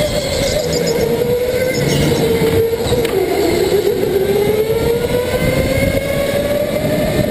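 Go-kart heard from on board while racing: the motor's pitch drops about three seconds in as it slows for a corner, then rises steadily as it accelerates back out.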